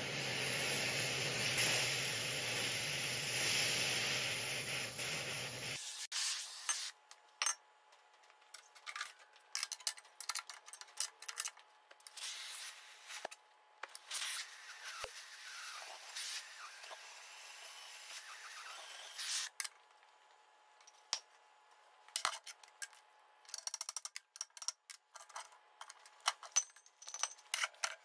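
An oxy gas cutting torch hisses steadily as it cuts through a steel conveyor roller's end plate around the broken shaft. The hiss stops abruptly about six seconds in. After that there are only scattered clicks and knocks of metal being handled.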